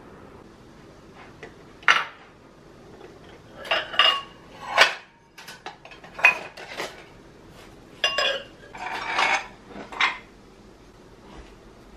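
Dishes and cutlery being handled, with a series of irregular clinks and clatters, several of them sharp and loud.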